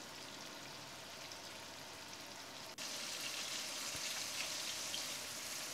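Kingfish steaks sizzling as they simmer in masala gravy in a frying pan: a steady hiss that gets louder about three seconds in.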